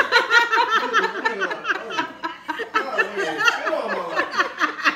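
A woman laughing continuously in quick, high-pitched bursts as a small dog licks her face.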